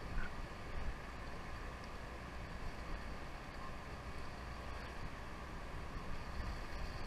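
Steady sea ambience aboard a sportfishing boat: an even hiss of wind and water over a continuous low rumble, with a couple of faint light ticks in the first second.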